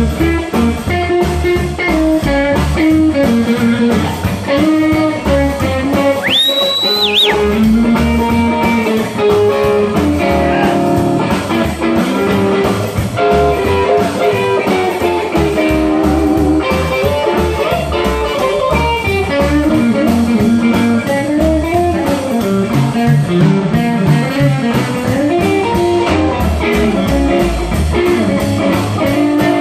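Live blues boogie played instrumentally on electric guitar, upright bass and drums, with a steady driving beat under moving guitar lines. A brief high gliding tone sounds about six seconds in.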